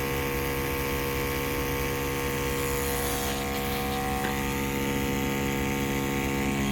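A motor running with a steady, unchanging hum that holds several constant pitches.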